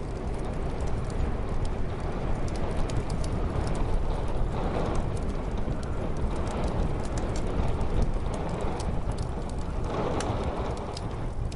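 Wood fire crackling with frequent sharp pops over a steady low rumble of muffled storm wind. The wind swells in gusts a few times.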